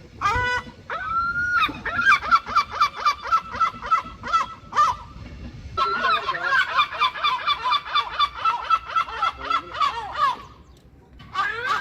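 Herring gulls calling: a drawn-out note, then long runs of short, fast repeated notes, several a second, in two bouts with a short break between. Calling picks up again near the end.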